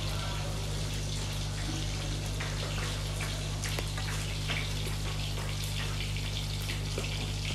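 Water running into a sink, with scattered drips and small splashes, over a steady low hum.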